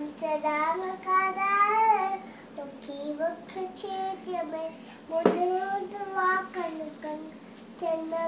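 A young girl singing a song, holding and bending long notes, some of them wavering. A single sharp knock comes about five seconds in.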